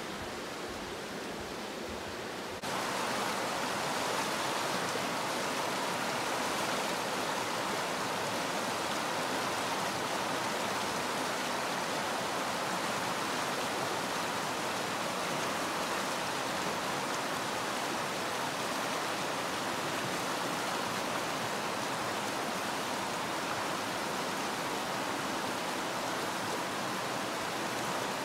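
Rushing water of a shallow, rocky forest creek, a steady hiss that gets louder about two and a half seconds in.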